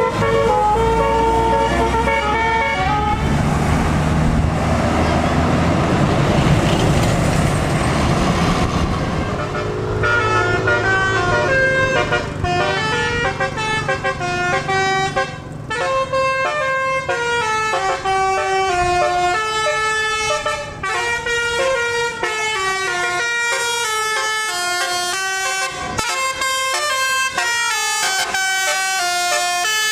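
Tour bus's 'telolet basuri' multi-tone musical horn playing a tune note by note. Heavy engine and road noise covers it for several seconds early on.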